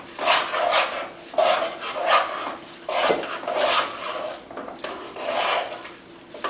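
A spoon stirring thick risotto in a pan, scraping against the pan in repeated rasping strokes about two a second. This is the continual stirring of the mantecatura, as butter and grated Parmesan are worked into the finished rice.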